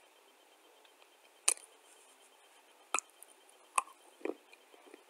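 Crunching bites of dry clay chunks being eaten: a few sharp cracks about one and a half, three and nearly four seconds in, with softer crunches after.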